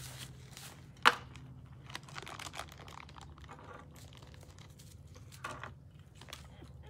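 Quiet rustling and crinkling handling noises, with a sharp click about a second in and a few softer clicks later.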